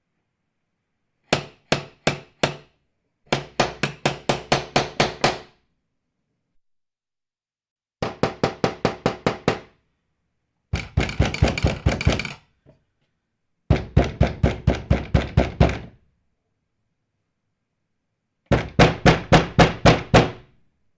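Knocking in six bursts of quick, evenly spaced knocks with pauses between them: four knocks about a second in, then runs of eight to twelve. The fourth burst is the fastest.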